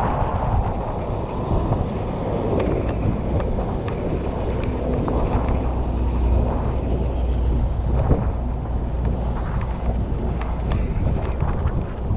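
Wind buffeting the microphone of a camera riding on a moving stand-up scooter, over a steady low rumble, with scattered small clicks and rattles.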